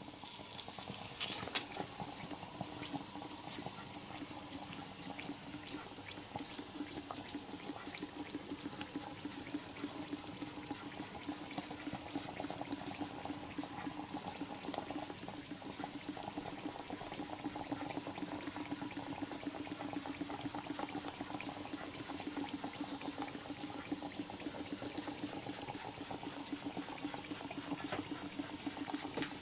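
Bassett-Lowke toy live-steam donkey engine running: the small cylinder chuffs in a fast, even rhythm under a steady hiss of steam, with a wet sputter. The sound fades in at the start.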